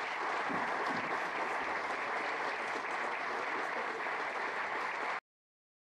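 Audience applauding, a steady clapping that cuts off suddenly about five seconds in.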